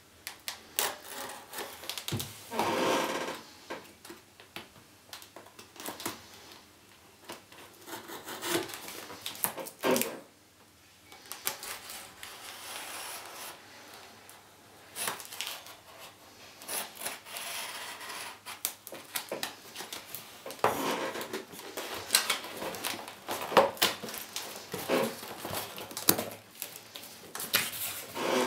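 A cardboard shipping box being opened and its packaging handled: irregular scraping, rubbing and rustling of cardboard and plastic wrap, broken by sharp clicks and knocks, with one longer scrape about three seconds in.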